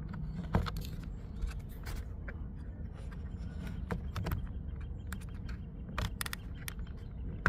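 Scattered small plastic clicks and handling noises as wiring plug connectors are squeezed and pulled off a car door's switch panel, over a steady low background hum.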